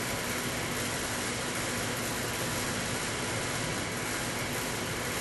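Steady background hiss with a faint, even hum, unchanging throughout.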